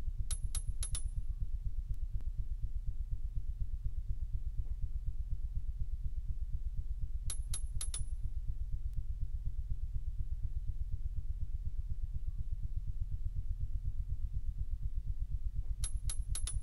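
End-credits sound-design bed: a low, fast, even pulsing throb, with a group of three short, bright, high ticks about a third of a second apart that comes back three times, roughly every seven and a half seconds.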